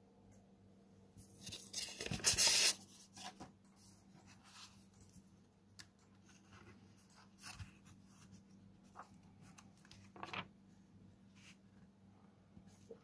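Paper rustling as an 1891 paper-wrappered book is handled and leafed open: a loud rustle of the covers and pages about two seconds in, then scattered soft rustles and light taps, with a brief sharper rustle near the end.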